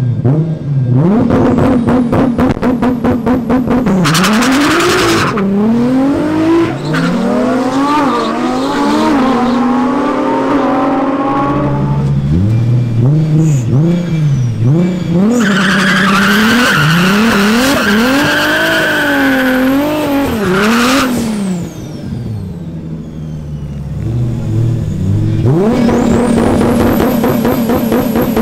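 Single-turbo MkIV Toyota Supra engine being revved hard again and again, rising and falling in pitch, with a rapid popping stutter near the start. There are two stretches of tyre squeal, about four seconds in and from about fifteen to twenty-one seconds.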